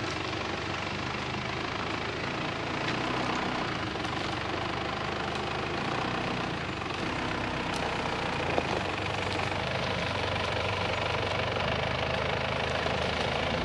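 Mitsubishi Shogun (Pajero) 4x4 creeping slowly over a rough gravel track, its engine running low and steady with tyre and gravel noise.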